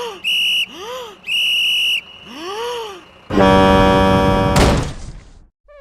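Shrill whistle blown in two short blasts, with short rising-and-falling wails between them, then a loud steady horn blast about three seconds in that lasts over a second.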